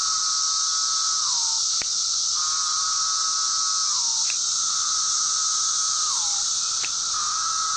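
A male 17-year periodical cicada repeating its courtship call three times: each call is a held buzzing tone that drops in pitch at the end. Under it runs the steady high hiss of the chorus of millions of cicadas. A sharp finger snap follows each call, imitating the female's wing-flick reply.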